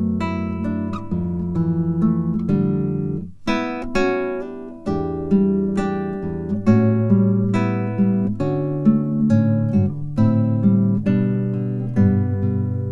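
Acoustic guitar music: a run of plucked notes and strummed chords, with a brief break about three and a half seconds in.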